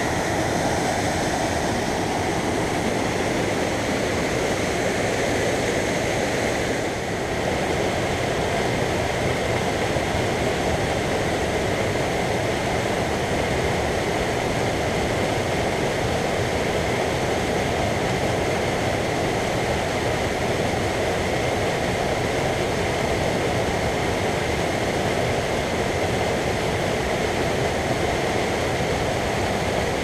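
Steady rush of a fast mountain stream cascading white over boulders and logs.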